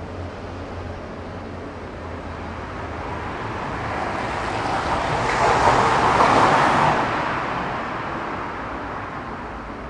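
A car passing by unseen on the street: a rush of tyre and engine noise swells over several seconds, peaks about six seconds in, then fades away. A low hum dies away in the first few seconds.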